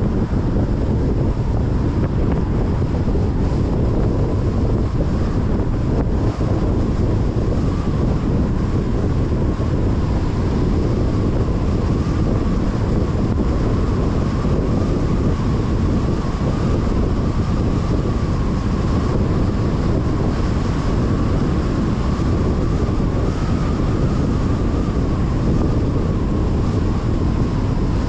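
Steady wind and road noise from a car driving at speed, with wind rumbling on the microphone.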